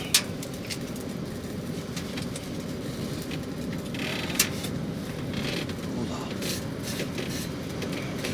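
Cookware being handled, with sharp clicks and clinks: two loud ones just after the start and about four and a half seconds in, and fainter ones between, over a steady low rumble.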